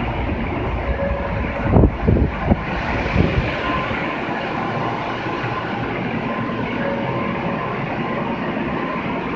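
Steady hum and hiss of a stopped Osaka Municipal Subway 22 series train standing at an underground platform with its doors open, with faint steady tones in it. A few dull thumps come about two to three seconds in.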